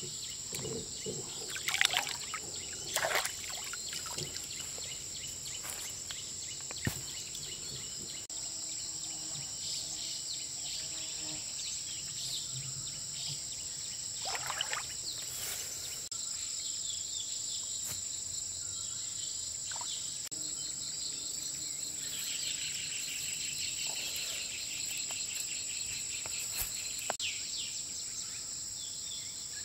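Steady, high-pitched chorus of insects, with a few splashes of water from someone wading and reaching into a shallow, muddy paddy pool: two in the first few seconds and another about halfway through.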